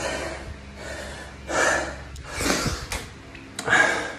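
A man gasping for breath, a few loud, heavy breaths about a second apart: he is out of breath from an all-out six-minute effort.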